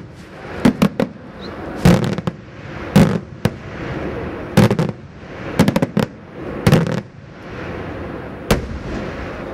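Daytime aerial fireworks shells exploding overhead in an irregular string of about ten sharp bangs, some in quick pairs and a tight cluster a little past halfway, each with an echoing tail.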